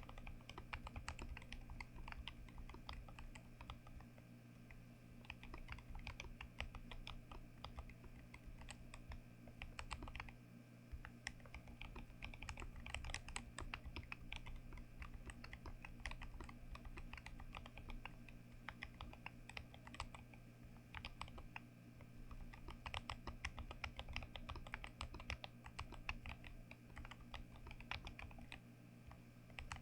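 Typing on a mechanical keyboard: a steady run of key clacks, with brief pauses about a third and two-thirds of the way through, over a low steady hum.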